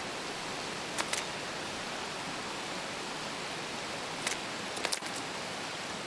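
Steady rush of stream water, with a few sharp taps in two short clusters as a brown dipper batters a caddisfly larva in its stone case against the rock.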